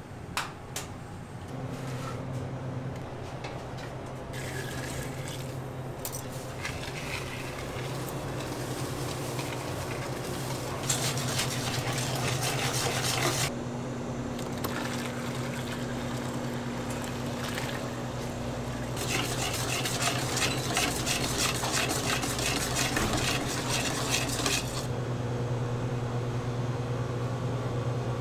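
Kitchen work sounds: utensils clattering and liquid being handled over a steady machine hum. Twice a louder rushing noise with a fast fine rattle comes in for a few seconds, the second lasting about six seconds.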